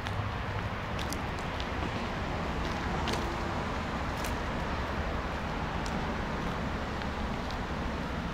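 Steady outdoor background rumble, with a few faint clicks scattered through it.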